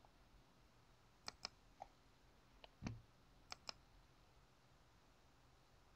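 Faint clicking at a computer: three pairs of quick clicks between about one and four seconds in, the middle pair with a low thump, as a menu item is chosen to shut down a virtual machine.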